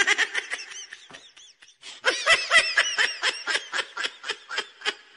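High-pitched laughter: a quick run of short laughs, about four or five a second, faltering about a second in and then coming on stronger.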